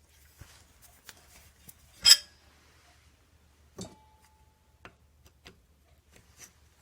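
Small metal parts and tools being handled on a workbench: scattered light clicks, a sharp metallic clink about two seconds in, and a second knock near four seconds in that leaves a short ringing tone.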